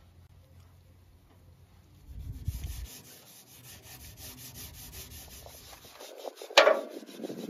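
Steel wool scrubbing rust off the pitted chrome bumper bar of a 1928 Ford Model A, in fast, even back-and-forth strokes starting about two seconds in. A single sharp knock sounds near the end.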